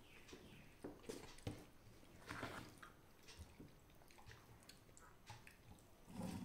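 Quiet eating sounds: faint chewing and the soft squish of rice and dal being mixed by hand on a steel plate, with a few light clicks.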